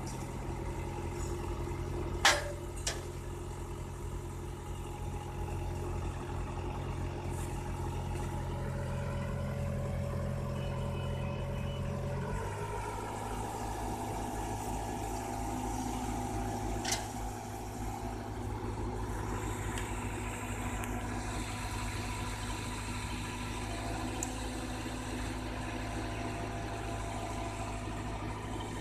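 Truck engine running steadily to drive the truck-mounted crane's hydraulics as the steel pole is lifted; the engine note changes abruptly about twelve seconds in. Two sharp knocks, one a couple of seconds in and one a little past halfway.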